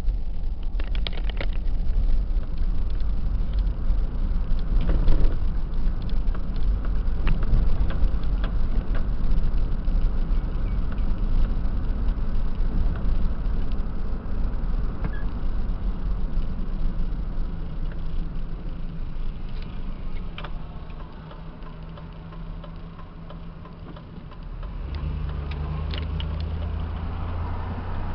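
Car interior noise while driving: engine and tyre rumble. Near the end the rumble drops as the car slows, and a steady low engine hum takes over.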